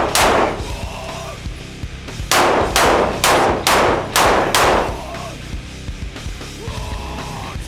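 Gunshots: one right at the start, then six in quick succession about two a second, each ringing out briefly, over background music.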